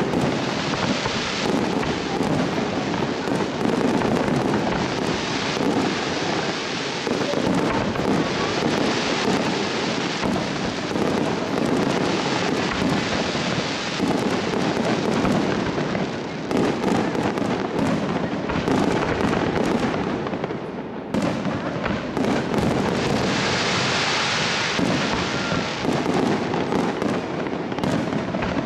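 Fireworks display: aerial shells bursting one after another in a dense, near-continuous barrage of bangs and crackle. The barrage eases briefly about three-quarters of the way through, then comes back with a stretch of hissing crackle.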